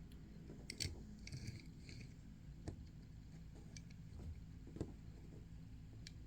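Faint, light clicks and taps from handling a small reassembled diecast toy car: a short cluster about a second in, then single ticks spaced a couple of seconds apart.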